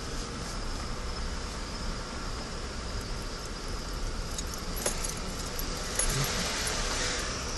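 Low steady rumble of a slowly rolling truck, with light metallic jingling and a few sharp clicks in the second half; crickets chirp faintly.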